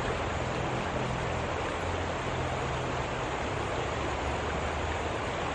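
Steady rushing of water, with a low hum underneath.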